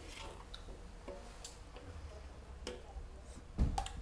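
Metal spoons clicking and tapping against plastic soup bowls in scattered light ticks, with a louder knock near the end.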